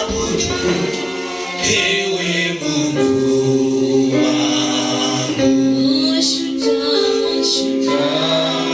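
A choir singing a gospel song in several voices, holding long notes, with a shaker-like rhythm behind it.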